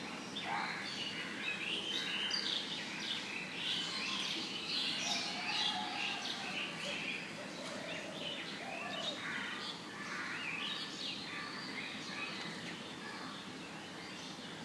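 Several birds chirping, many short calls overlapping, busiest in the first half, with a few lower calls in the middle. A steady hiss of recording noise lies underneath.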